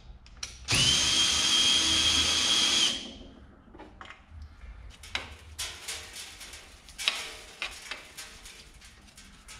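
Cordless drill spinning the metal lathe's cross-slide feed screw through a socket adapter, winding the cross slide along. It speeds up to a steady whine, runs for about two seconds and stops. Light clicks and rattles of metal being handled follow near the end.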